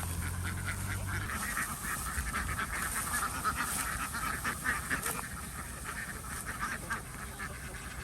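A flock of farm ducks calling, many short quacks overlapping in a constant chatter that thins out a little after about five seconds. A low steady hum sounds under the calls for the first second.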